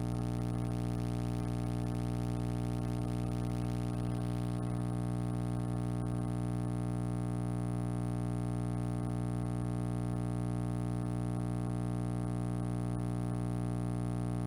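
Low, angry electrical buzzing picked up by an induction microphone from an electromagnetic field: a steady hum rich in overtones that does not change. A faint hiss above it drops away about four seconds in.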